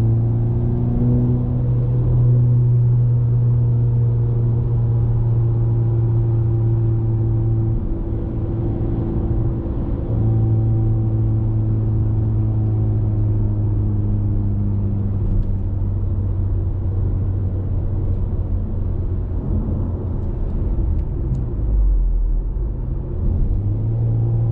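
Audi TT 2.0 TFSI turbocharged four-cylinder running through a Supersprint aftermarket exhaust, heard from inside the cabin on a steady cruise: a steady low exhaust drone with road noise under it. The drone breaks off briefly about eight seconds in and fades again near the end.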